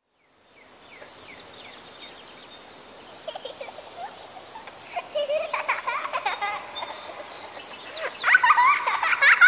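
Birds singing over a steady high insect chirr, the sound fading in at the start. The birdsong grows busier and louder, with many quick rising and falling whistles in the last few seconds.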